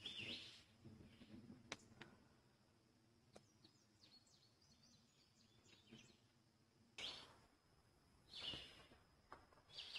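Faint chirps and short calls of small songbirds, with a quick run of chirps in the middle and a few sharp clicks in the first few seconds.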